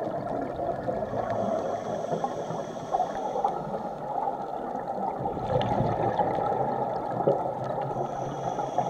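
Underwater sound through a camera housing: a steady muffled rush of water with scuba regulator exhaust bubbles gurgling. A faint high whine comes in about a second in and fades out, then returns near the end.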